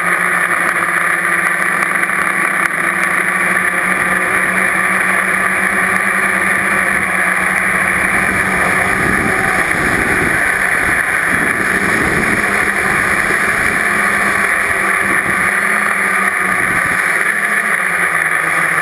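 Multirotor drone's motors and propellers running with a steady hum and whine. Low rumbling buffets come and go about halfway through and again near the end.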